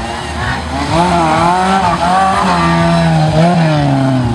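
Offroad 4x4's engine revving hard, its pitch climbing about a second in, wavering up and down, then falling away near the end.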